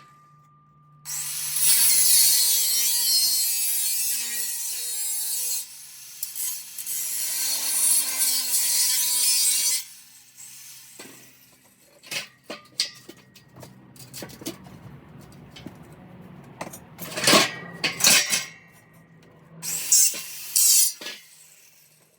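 Chop saw cutting steel tubing for about nine seconds, a harsh grinding noise with a wavering motor tone, then stopping abruptly. After it, scattered clanks and knocks of metal.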